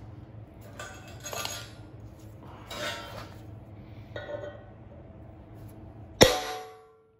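Steel parts clinking and scraping as they are handled, then one hard metal-on-steel strike about six seconds in that rings and dies away.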